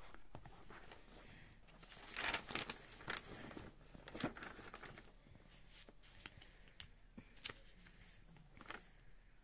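Paper rustling and crinkling as notebook pages are turned and tape-covered paper cutouts are handled, busiest about two seconds in, with a few light taps and rustles later.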